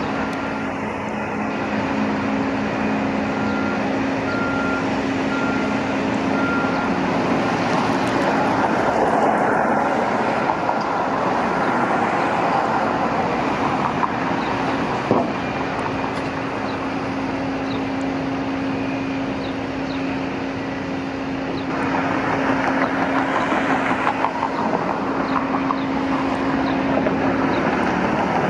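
Steady outdoor construction-site and traffic noise, with vehicle engines running. A backup alarm beeps about once a second for the first several seconds, then stops.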